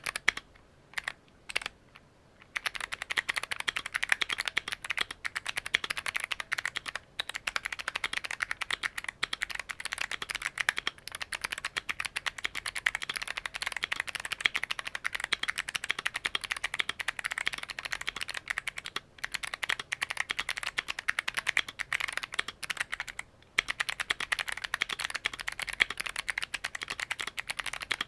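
Modded Keychron Q1 mechanical keyboard with Kailh Box Midnight Jade clicky switches being typed on fast and continuously, a crisp click on every keystroke. It starts with a short lull of a few single keystrokes before the steady typing sets in, with a few brief pauses later.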